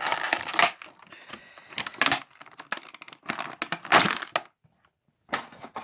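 Toy packaging crinkling and crackling as it is pulled open, in several irregular bursts with short pauses.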